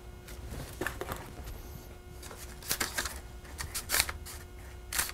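Hands sprinkling and spreading chopped walnut-and-sugar filling over phyllo dough in a parchment-lined baking pan: irregular soft scratches and rustles, a few a little louder in the second half.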